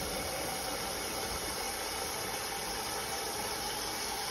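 Steady whirring hum with a constant hiss, even throughout, with no distinct knocks or clicks.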